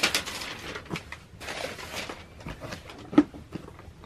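Tissue paper rustling and crinkling in a shoebox as a sneaker is lifted out, with one sharp knock about three seconds in.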